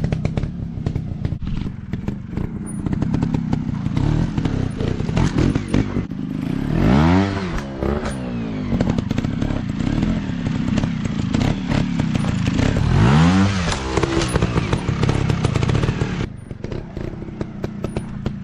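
Off-road trail motorcycle engines running, revved up and back down twice, about seven and thirteen seconds in, over a steady low running sound with many short knocks and clatter.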